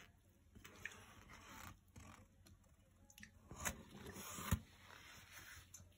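Takeaway food packaging handled close to the microphone: faint rustling, crinkling and scraping of paper, foil and foam containers, with sharper clicks about three and a half seconds in and a knock about four and a half seconds in.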